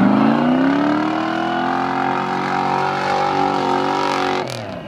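An off-road 4x4's engine revving, its pitch climbing and then held high. About four and a half seconds in the revs drop off abruptly with a short sharp sound.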